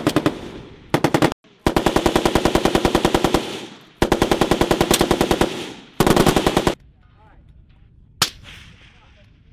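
Machine gun firing four bursts of automatic fire at about ten rounds a second, the longest nearly two seconds, followed about eight seconds in by a single rifle shot.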